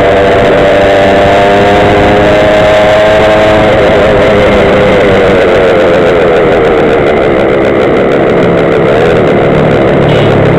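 Small two-stroke engine of a gas stand-up scooter (GoPed) running at speed over a steady rushing noise. Its pitch rises slightly for the first three seconds or so, then drops away as the throttle eases off.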